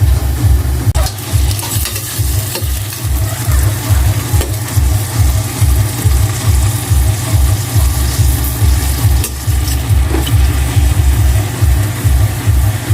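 Shrimp sizzling as they fry in butter in a pan. Underneath runs a low, pulsing bass beat, about two to three pulses a second.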